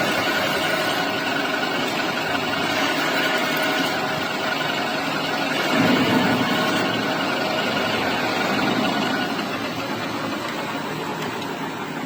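Metal lathe running steadily, with a brief louder swell about six seconds in.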